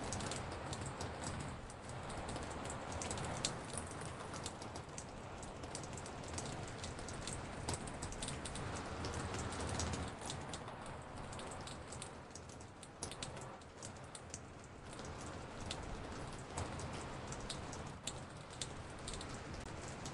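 Recorded raindrops falling on a porch: many separate drips tapping over a steady rain hiss, the samples layered on top of one another and placed left and right around the listener.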